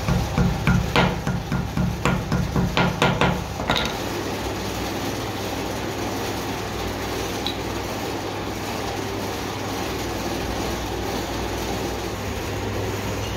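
Hammer tapping a rubber oil seal into the piston water pump's cast bearing housing: a quick run of sharp metallic taps, about three a second, that stops about four seconds in. A steady low hum runs underneath.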